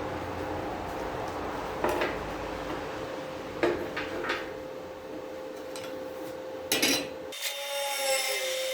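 Workshop handling sounds: a few short knocks and taps of tools or parts over a steady hum. Near the end the hum cuts off and background music comes in.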